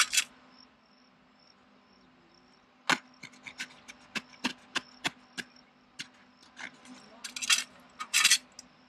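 A knife cutting through the fabric seat of a folding camp stool: one cut at the start, then after a pause of about two seconds a run of short, sharp cuts, and two longer, louder cutting strokes near the end.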